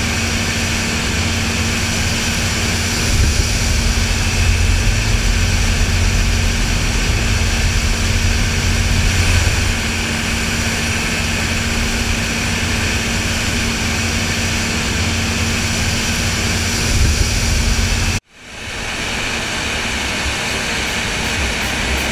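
New Holland CR8070 combine harvester running steadily while harvesting maize: a deep rumble under a steady hum and a broad rushing noise. The sound cuts out suddenly about 18 seconds in and fades back up over about a second.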